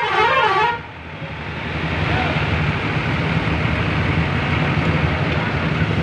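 A bus telolet horn plays a warbling tune, its pitch swinging up and down, and cuts off under a second in. After that, the coach's engine runs with a steady low rumble as it passes close by.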